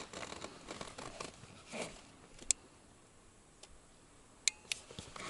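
Faint scattered clicks and light taps of hands handling small hard objects, with one sharp tick about halfway through and two more in quick succession near the end.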